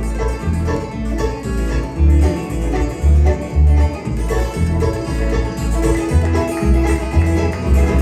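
A bluegrass band of banjo, acoustic guitar, upright bass and fiddle playing an instrumental break, the bass keeping a steady pulse under the picked banjo and guitar.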